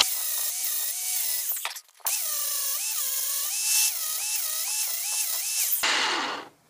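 Ryobi angle grinder grinding the corners of a square steel bar, the motor's whine dipping and recovering again and again as the disc is pressed into the metal. There is a brief break about two seconds in, and the grinding stops about six seconds in.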